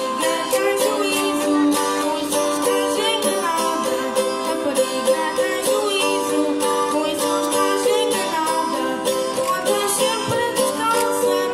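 Traditional Madeiran folk music played live by a costumed folk group, led by small plucked string instruments strummed in a steady rhythm.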